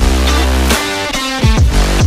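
Electronic dance music with a heavy, sustained bass and synth notes that slide down in pitch.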